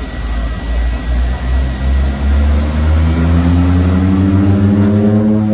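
The DHC-6-300 Twin Otter's twin PT6A turboprop engines and propellers power up as the power levers are advanced. A heavy, loud drone rises in pitch and loudness from about halfway through, with a faint high turbine whine climbing over it.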